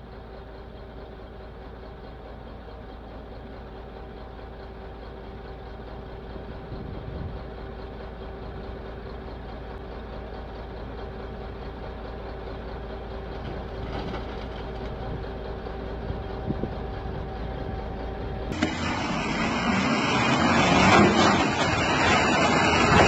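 Volvo excavator's diesel engine running at a steady speed, a constant hum with two steady tones that slowly grows louder. About eighteen seconds in it gives way abruptly to a much louder rushing noise that keeps building.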